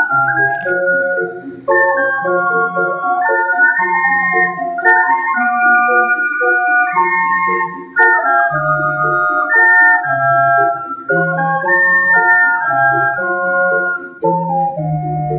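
An ensemble of ocarinas playing a piece in several parts: clear, pure held notes moving together in harmony over a low bass line of short held notes.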